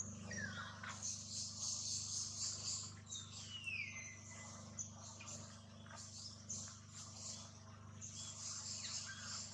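Animal calls: a few falling whistled calls and scattered short chirps over a steady high hiss and a constant low hum.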